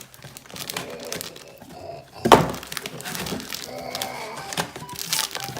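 Rustling and handling noises with one sharp knock about two and a half seconds in.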